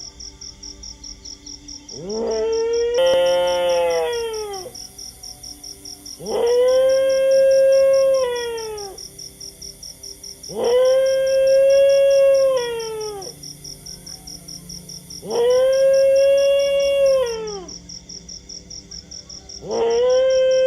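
A dog howling, five long howls about four and a half seconds apart, each sliding up, holding a steady pitch, then falling away. A steady, fast-pulsing high chirp runs underneath.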